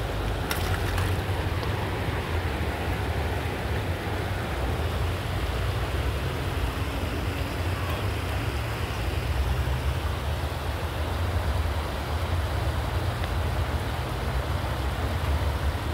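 Steady rushing of a shallow, rocky river over its stones, with a low rumble underneath.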